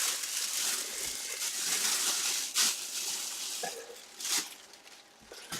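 Rustling and handling noise of packaging, a steady hiss-like rustle with two brief louder rustles about two and a half and four seconds in, dying away near the end.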